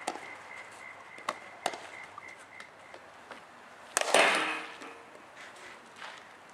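A softball bat striking a ball once about four seconds in: a sharp crack with a short ringing tail. Before it come a few faint clicks and knocks.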